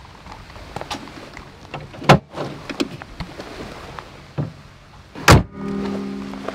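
Two heavy thuds about three seconds apart, the second the louder, as a car's bonnet is brought down and shut over a blanket laid across the engine. A steady low hum follows the second thud.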